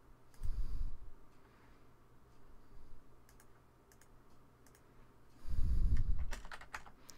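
A few sharp computer mouse clicks, with two brief low rumbles, one about half a second in and the louder one near the end.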